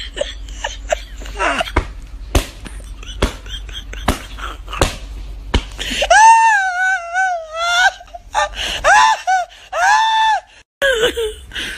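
Phone-handling knocks and clicks with a low rumble, then about six seconds in a person's loud, high-pitched wavering wail, followed by shorter high cries.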